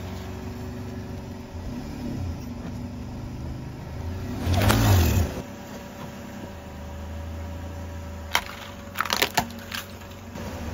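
Car engine running low and steady, with plastic toy cars cracking under the tyre as a quick cluster of sharp snaps in the second half. A brief loud swell with a rise-and-fall pitch comes near the middle.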